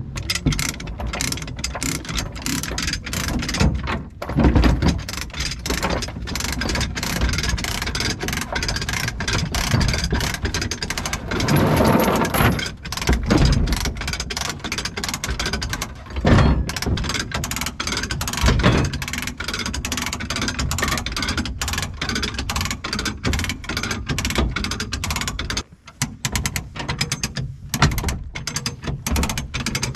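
Rapid, continuous mechanical clicking and rattling, like a ratcheting mechanism being worked, with a brief pause about four-fifths of the way through.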